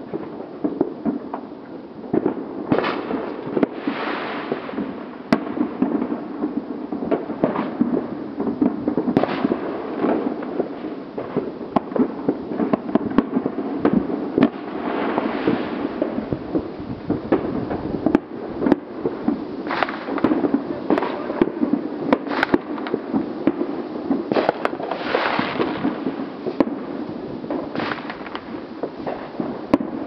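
Fireworks going off without pause, a dense run of sharp cracks and pops with a louder burst every few seconds.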